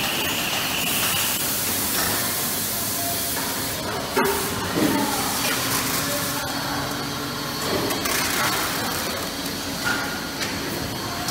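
Injection moulding machine and its unloading robot arm at work: a steady hiss, brighter in the first few seconds, a sharp click about four seconds in and a clunk just after, then a steady low hum for a few seconds.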